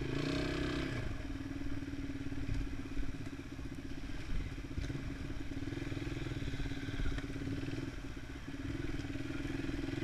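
Small enduro motorcycle engine running at a steady, moderate pace while riding along a bumpy dirt track, with a few short knocks and rattles from the bumps.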